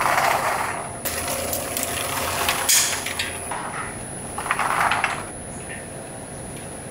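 Clattering and clicking from snack-factory work, hard pieces knocking together or against equipment, with two short rustling swells, one at the start and one about five seconds in.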